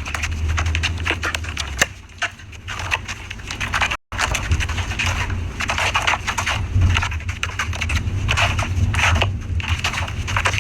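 Slime being squeezed and pressed, making dense, irregular crackling and popping clicks. The sound breaks off for an instant about four seconds in, then carries on.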